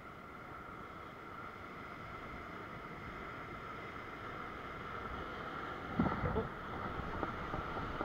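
Surf washing over rocks below and wind on the microphone, a steady rushing that slowly grows louder, with a sudden louder low rush about six seconds in.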